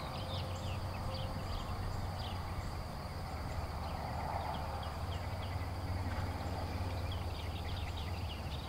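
Faint hoofbeats of a horse cantering on a sand arena, heard from a distance. A steady low rumble and short high chirps run underneath.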